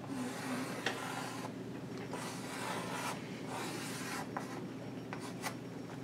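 Chalk drawing on a blackboard: several scratchy strokes, each up to about a second and a half long, as circles and an arrow are drawn, with a few short clicks between them.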